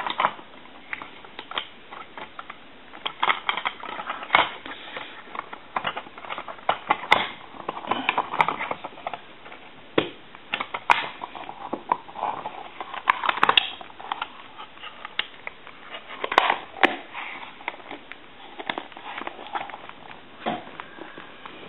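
Hands handling a Harris TS22 lineman's butt set as it is hooked up: irregular clicks, taps and plastic knocks with bits of rustling and scraping.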